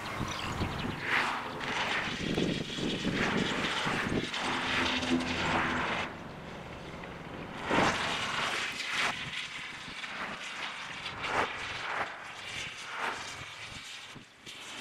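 Engine-like machinery noise with frequent short surges that rise and fall, and a brief steady hum about five seconds in.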